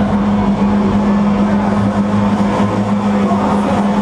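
Electronic dance music played loud over a festival sound system, with a held low synth tone throughout, heard through a distorted phone-type recording with crowd noise mixed in.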